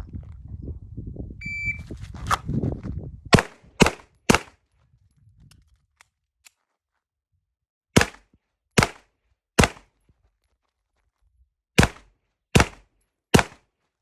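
Shot timer's start beep, then nine handgun shots in three strings of three during a timed pistol drill: three quick shots from the draw, a few light clicks of the reload, three more shots, a pause, and a last three with the weak hand. The shots in each string come a little under a second apart.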